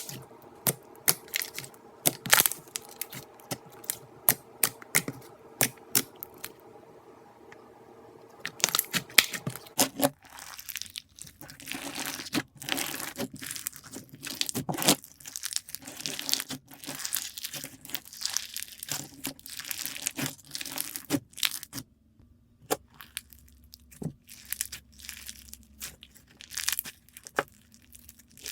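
Slime being squeezed and worked by hand, giving a string of irregular sharp crackles and pops, denser after about ten seconds.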